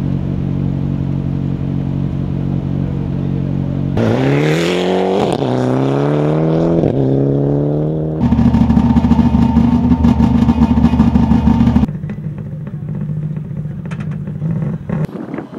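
Rally car engine idling steadily, then accelerating hard about four seconds in, revs climbing with two quick upshifts. It then switches abruptly to an engine held loud at steady high revs, and after that a quieter engine running.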